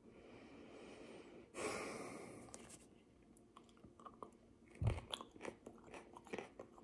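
Biting into and chewing a raw Carolina Reaper pepper: faint crunching and wet mouth clicks that start about four seconds in, with a louder bite near five seconds. A short rush of noise comes about a second and a half in.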